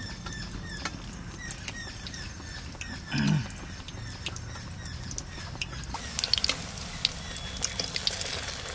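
Dense crackling and spitting of hot oil as a battered aubergine fritter (beguni) fries, starting about six seconds in. Before that, a low steady background hum with one short voice sound about three seconds in.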